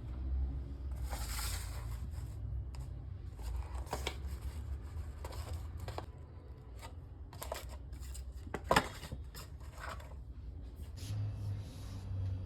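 Objects being handled: rustling and a scatter of sharp clicks and knocks, the loudest about nine seconds in, over a low steady rumble.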